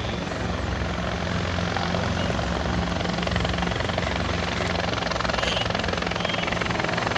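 Two Bell 412 twin-turboshaft helicopters coming in low to land, their rotors beating steadily and growing slightly louder as they approach.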